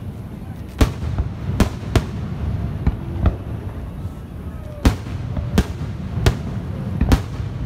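Aerial fireworks shells bursting overhead: about nine sharp bangs at irregular intervals, with a low rumble between them.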